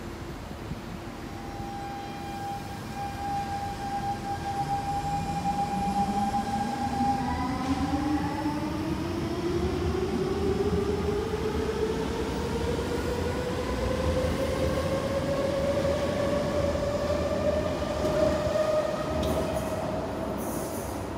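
Siemens C651 metro train pulling out, its GTO-VVVF traction inverters giving a steady whine, then a whine that climbs steadily in pitch as the train gains speed, over wheel and rail rumble.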